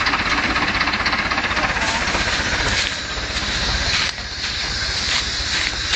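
Tractor engine running hard with a fast, even beat while the tractor works in deep mud. The sound eases a little about three seconds in and again about a second later.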